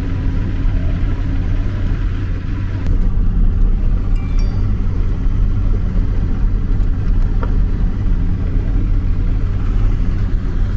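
Speedboat engine running steadily under way, a continuous deep rumble that grows slightly louder about three seconds in.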